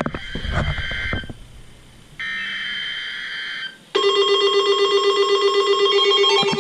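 Emergency Alert System tones from a weather radio's speaker: short, screechy digital header bursts (with a few knocks in the first second), then about four seconds in the loud, steady attention tone begins, signalling an incoming severe thunderstorm warning.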